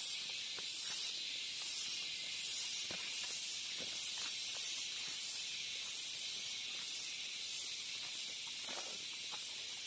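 Insects buzzing in a high, steady drone that pulses two or three times a second, with a few faint footsteps on a forest path.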